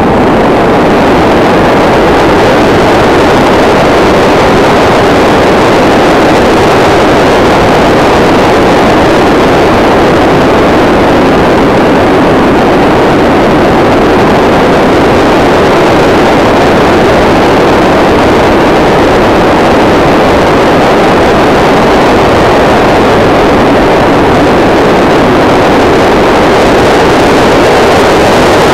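Electric model plane's Turnigy D3542/6 1000KV brushless motor on 4S, driving a 10x6 folding propeller under power, heard from an onboard camera: a loud, steady motor-and-propeller drone mixed with rushing air.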